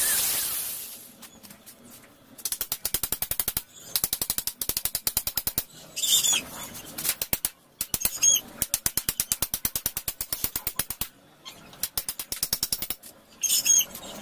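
Ratchet clicking in fast, even runs of about a dozen clicks a second, several runs with short pauses between them, with a few brief bird chirps.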